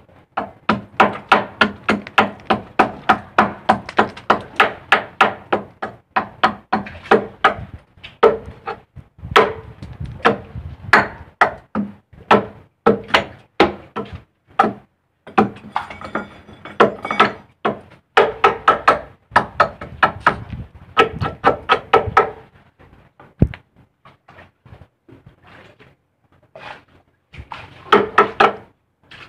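Hand hammer striking metal on a boat's deck, a few blows a second, each with a short ring. The blows come in long runs broken by brief pauses.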